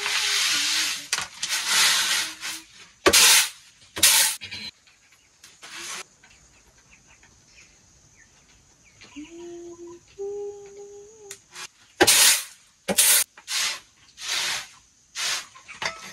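Dry white grain swishing and rattling on a woven bamboo tray as it is spread by hand and shaken, in short loud swishes in two clusters. A short pitched sound, held and then stepping up in pitch, comes about nine seconds in.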